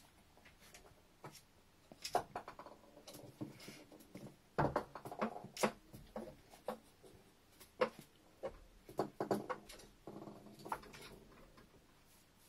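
Westie puppy scrabbling and pawing at chestnuts on a tiled floor against a wooden cupboard: irregular clicks, knocks and scratching of claws and nuts on tile and wood, coming in bursts about two seconds in, around five seconds, and again from about eight to eleven seconds.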